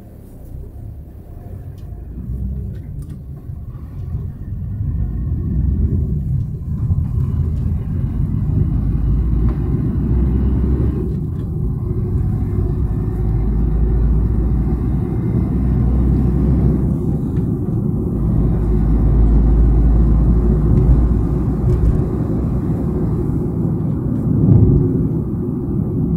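Low, steady rumble of a car driving, heard from inside the cabin. It grows louder over the first few seconds and then holds steady, with a brief louder bump near the end.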